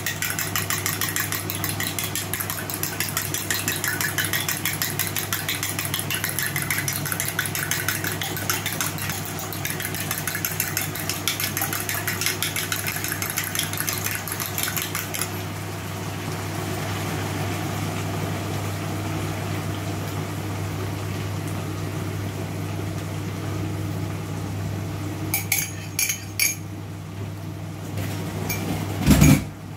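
A metal utensil clinking and scraping quickly and rhythmically against a cooking pot for about fifteen seconds, over a steady low hum. A few more clinks come near the end, then a loud low thump just before the end.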